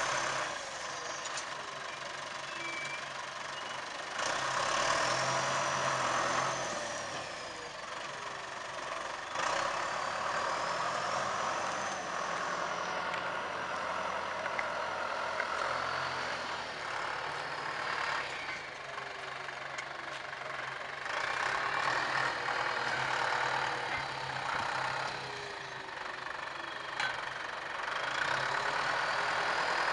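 John Deere tractor's diesel engine working under load as it pulls a tillage implement through dry cane stubble, the sound swelling and fading every few seconds as the tractor moves and turns. A faint high whine slides up and down over several seconds above the engine.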